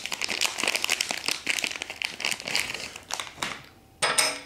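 Packaging crinkling and rustling as it is handled, a dense crackle that dies away about three and a half seconds in. Just after that comes a short ringing clink.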